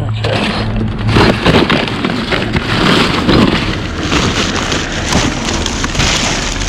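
A plastic garbage bag rustling and crinkling, with drink cans clattering and crunching, as the bag is rummaged through for cans.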